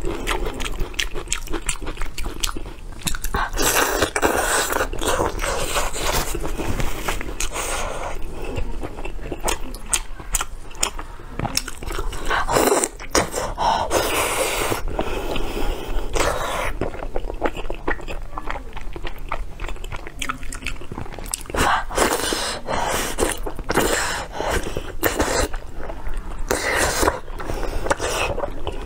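Close-miked eating sounds of sesame-topped braised pork belly: biting and chewing, with frequent small crunches and crackles.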